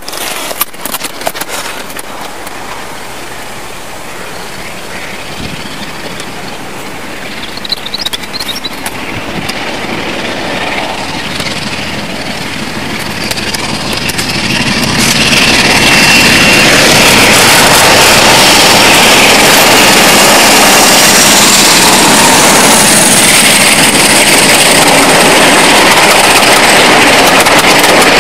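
A pair of Class 47 diesel locomotives, Sulzer 12-cylinder engines, working hard as they pull a train away from a station. The sound grows from distant to very loud about halfway through as they pass close by, and the train's coaches are running past near the end.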